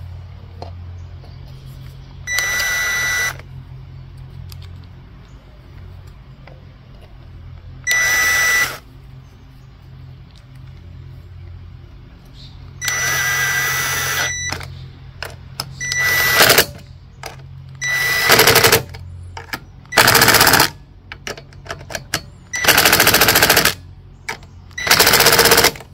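Cordless impact driver running in the valve cover bolts on a small overhead-valve engine. It goes in about eight short bursts of rapid hammering over a motor whine, each about a second long, with pauses between them.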